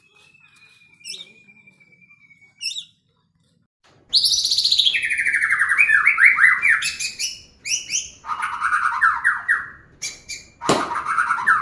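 A songbird singing close by. A faint high whistle and a few short chirps come first, then about four seconds in a loud song of quick trilled phrases and falling notes starts, repeating. A sharp click comes near the end.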